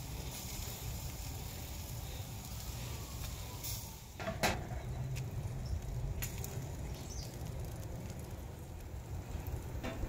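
Picanha steaks and butter baste sizzling faintly on a charcoal grill fire, over a steady low rumble, with a couple of sharp clicks about four seconds in.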